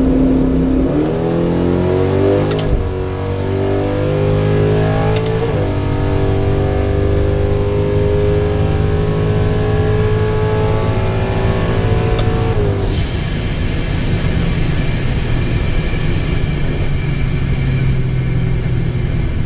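Ram pickup's Hemi V8 at full throttle on a drag run, heard from inside the cab: engine pitch climbs and drops back at upshifts about 3 and 5.5 seconds in, with a high whine rising alongside it. About two-thirds of the way through, the whine stops and the engine settles into a steadier lower rumble, as when the driver lifts off.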